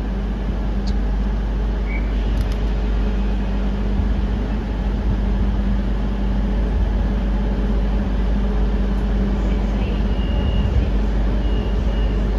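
CrossCountry Class 220 Voyager diesel multiple unit idling at the platform, its underfloor Cummins diesel engines giving a steady rumble with a constant hum. Near the end there are two or three faint short high beeps.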